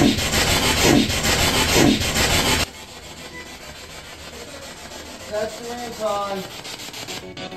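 A loud, raspy growl lasting about two and a half seconds, with two falling strokes in it. The investigators present it as a guttural growl from a spirit. A fainter, pitched, voice-like sound follows a few seconds later.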